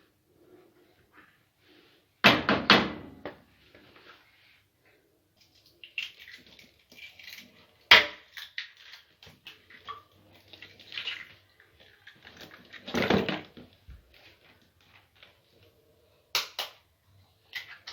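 Kitchen clatter: baking trays, bowls and utensils being handled and set down, with a few louder knocks and clanks scattered through.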